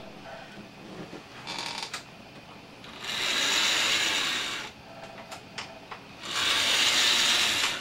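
Electric motor and gears of an AHM C-liner HO-scale model locomotive running along track in two runs of about a second and a half each, with a few light clicks between. Its motor tower is not yet oiled.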